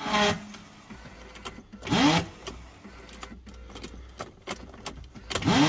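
BMW E39 528i starter motor spinning without engaging the flywheel: a steady low whirr with three short louder whines that rise in pitch, near the start, about two seconds in, and near the end. The owner takes it for a starter solenoid frozen in the cold.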